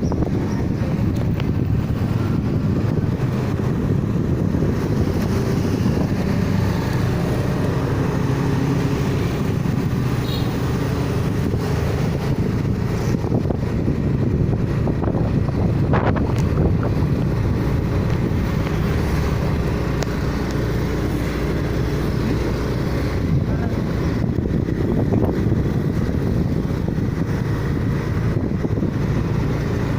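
Steady vehicle running and road noise, with wind buffeting the microphone.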